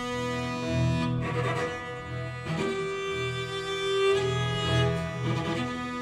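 A chamber string ensemble of violins, cellos and double bass playing slow music: long held bowed notes over low notes that swell and fade about once a second, with a higher note held out through the middle.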